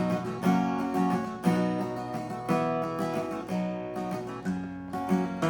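Acoustic guitar strummed in a steady rhythm, a strum about every second, playing a song's intro with no singing yet.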